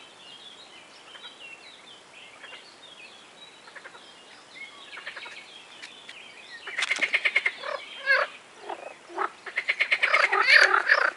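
Frogs croaking in loud bouts of rapid pulses, the first starting about two-thirds of the way in and a longer one near the end, after a stretch of faint bird chirps.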